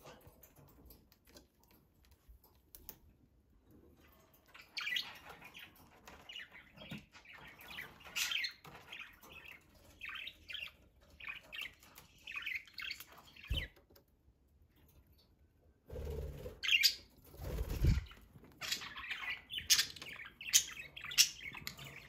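Pet budgerigars chirping and warbling in quick bursts of high, busy twitters, with a pause in the middle. There is a short knock about two-thirds of the way through, and a couple of low thuds just before the second round of chirping.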